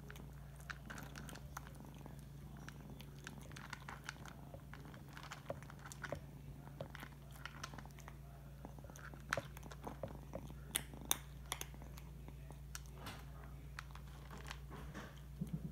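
A kitten crunching dry cat kibble: irregular sharp crunches and clicks of teeth on hard pellets, a few louder ones near the middle, over a steady low hum.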